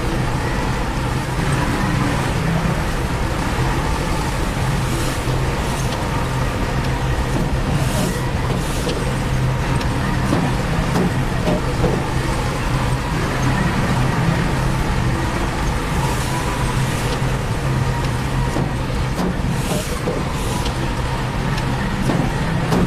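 Heavy diesel construction machinery running steadily, with a few brief clanks, most clearly about eight seconds in and near the end.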